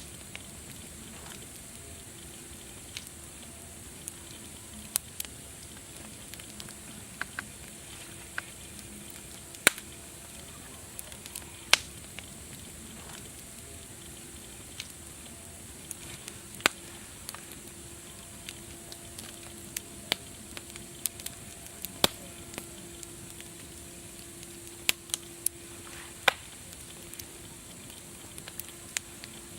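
Wood fire crackling: irregular sharp pops and snaps, a few of them loud, over a steady hiss.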